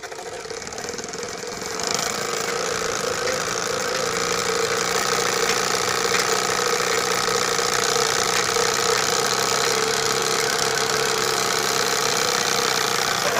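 Homemade bicycle exhaust made of a PVC pipe and a plastic bottle, buzzing like a motorcycle engine as the rear wheel is spun by turning the pedal by hand. It is meant to sound like an old Royal Enfield Bullet. It builds up over the first two seconds, then runs steadily.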